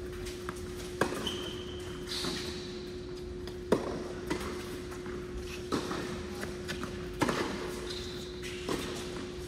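Tennis rally on an indoor hard court: sharp pops of a tennis ball struck by rackets and bouncing on the court, one every second or two, over a steady hum.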